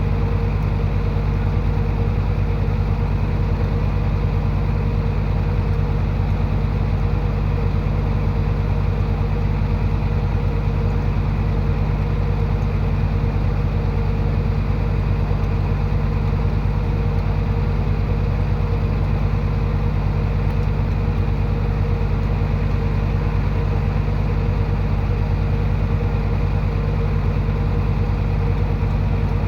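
Heavy diesel engine of earthmoving machinery running steadily at a low, even idle-like speed, with no revving or change in pitch.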